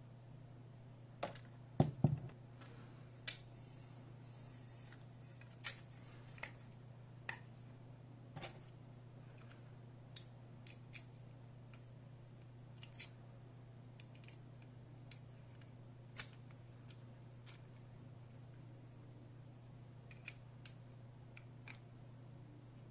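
Aluminium tablet-holder arm and clamp being handled and fitted together: scattered sharp metal clicks and knocks a second or so apart, the loudest a double clunk about two seconds in, over a faint steady low hum.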